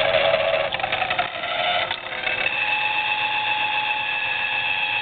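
Vectrax drill press running at low speed: a rattling whir from the motor and belt drive that settles into a steady high whine about two seconds in. The belt is a little noisy.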